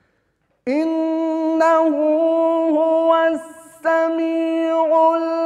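A man's voice reciting the Quran in the melodic, maqam-based mujawwad style: long, steadily held high notes with small ornamental turns. It starts about a second in and breaks for a quick breath midway before the held note resumes.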